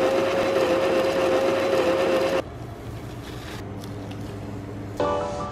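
Electric coffee grinder running, a steady high motor whine over the grinding of beans, which cuts off about two and a half seconds in. A quieter low hum follows, and music begins near the end.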